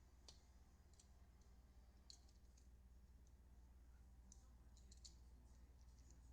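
Near silence: room tone with a steady low hum and a few faint, scattered clicks, several of them bunched together about five seconds in.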